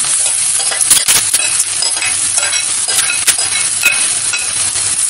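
Hot oil sizzling in a stainless steel kadhai as boiled, crumbled potatoes are tipped in onto fried onions, with several sharp clinks against the pan.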